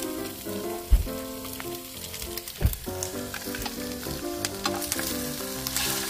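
Freshwater eel fillets sizzling steadily as they grill on a ridged grill pan, with two short low thumps: a loud one about a second in and another shortly before the middle.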